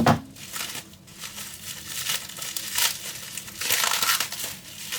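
Packaging crinkling and rustling in irregular bursts as a bottle of beard oil is unwrapped, with a sharp knock at the start and a longer rustle about four seconds in.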